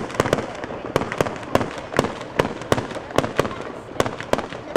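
Aerial firework shells bursting in quick succession: sharp bangs about three or four a second, with a continuous rumble and crackle between them.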